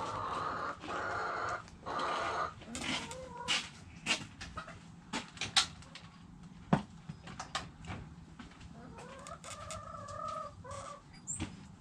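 Backyard chickens calling: a drawn-out three-part call at the start and another drawn-out call near the end. Between the calls come sharp taps and scratches as the birds scratch and peck in the dirt.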